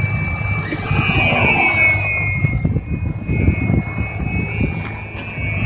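Whine of an RC aerobatic model airplane's motor and propeller in flight. It swells about a second in, then eases, over a low rumble.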